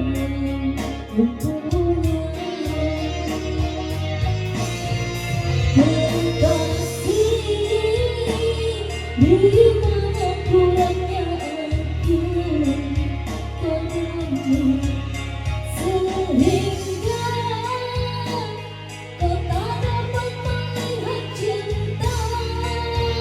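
A woman singing a song over backing music with a steady beat.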